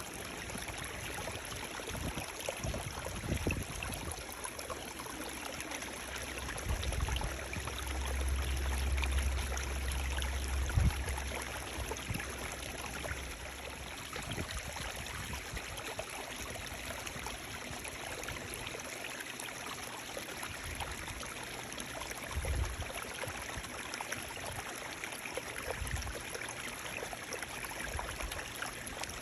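Running water flowing steadily, an even rushing hiss, with a low rumble for several seconds in the first half.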